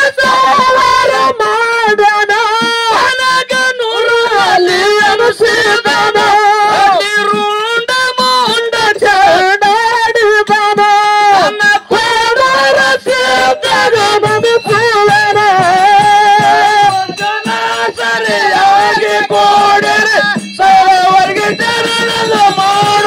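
A man singing a Kannada dollu folk song (dollina pada) into an amplified microphone, holding long, wavering notes.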